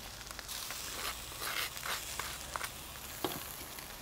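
Faint steady sizzling of burgers on a charcoal grill, with a few soft scrapes of a knife spreading mayonnaise on buns.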